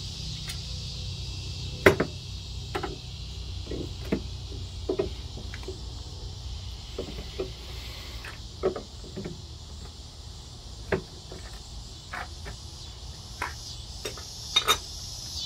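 Metal arm and clamps of a Strong Arm pottery tool knocking and clicking against the splash pan of a Bailey pottery wheel as they are fitted and adjusted: irregular sharp knocks, the loudest about two seconds in and a quick double knock near the end. A steady high insect trill runs underneath.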